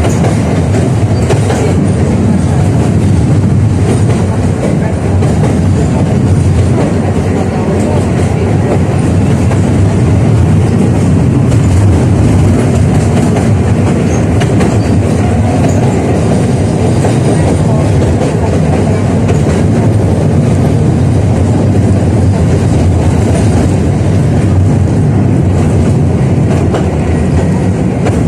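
71-605A (KTM-5A) tram running along the track between stops: steady noise of wheels on rails and running gear, heard on board.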